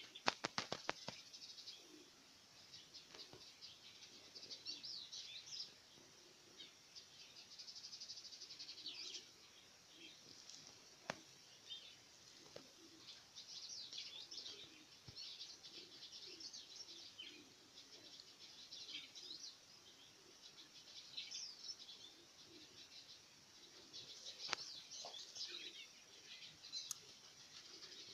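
Guinea fowl keets peeping: many short, high chirps overlapping in clusters every few seconds, faint overall. A quick run of sharp clicks right at the start.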